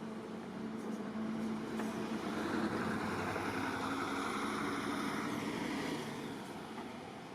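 A motor vehicle passing close by, its engine and tyre noise swelling to a peak midway and then fading away.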